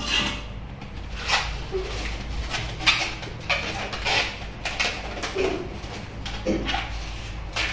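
Long latex modelling balloon squeaking and rubbing as it is twisted by hand into a shape, in short irregular squeaks.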